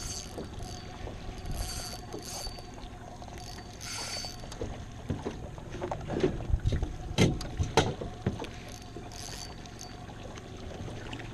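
Spinning reel being cranked to retrieve a lure, its gears whirring and clicking, with a few sharp knocks about six to eight seconds in.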